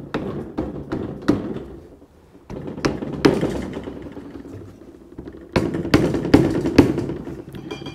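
A mallet tapping the aluminium lower crankcase half of a Chevy 2.2 Ecotec block, seating it onto its locating dowels over fresh RTV. It gives a string of sharp taps in three clusters, with a pause of about two seconds before the last and busiest cluster.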